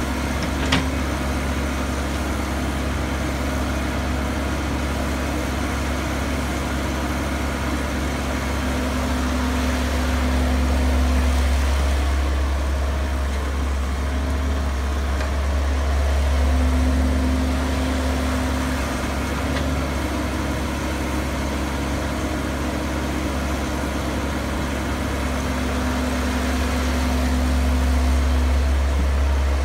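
Diesel engine of a Caterpillar crawler excavator running steadily while it digs and loads soil, swelling in level a few times as the hydraulics take load on the dig-and-swing cycles.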